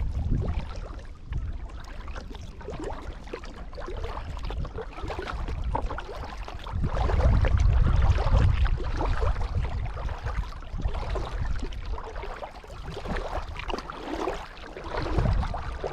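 Kayak paddle dipping and splashing through pond water, over a low rumble that swells about seven to nine seconds in.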